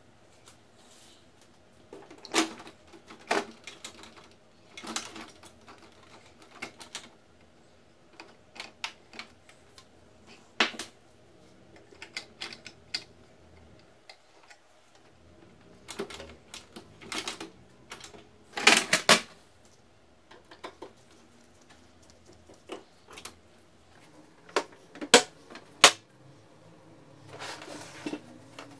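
Scattered plastic clicks and knocks from an HP Color LaserJet Pro M278–M283 series printer being worked on: its front door opened, a screwdriver probing the toner cartridge bay where the cartridge drawer is stuck, and the machine tipped over. A cluster of louder knocks comes a little past halfway, and two sharp ones near the end.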